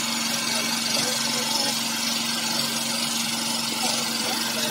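Small engine running steadily: a constant hum with a broad hiss over it.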